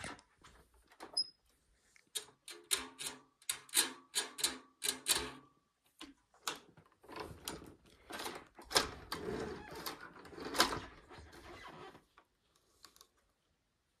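Clicks, knocks and rattles from a Hoover Concept One U333 upright vacuum being handled and pushed over carpet, with no steady motor sound: a quick run of clicks, then a denser clatter that stops about two seconds before the end.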